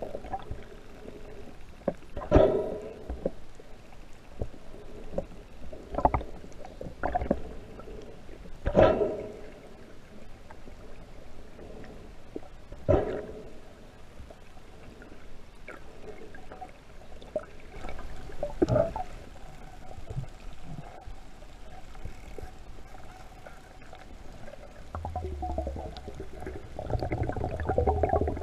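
Muffled underwater sound of water moving around a swimmer, with a short dull whoosh every few seconds. Near the end a louder low rumble and splashing noise build up.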